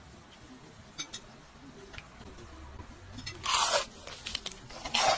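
Close-miked crunching eating sounds: a few faint clicks, then two louder crunches about three and a half and five seconds in.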